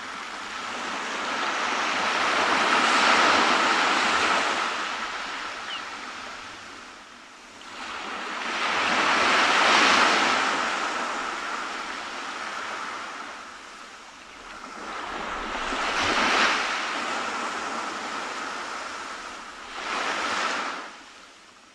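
Sea surf washing onto a sandy beach: four slow swells of hissing wash, each rising and falling over several seconds, the first two the loudest, fading out near the end.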